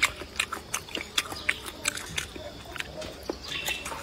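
A person chewing a mouthful of stir-fried squid tentacles with rice: a run of short, irregular mouth clicks.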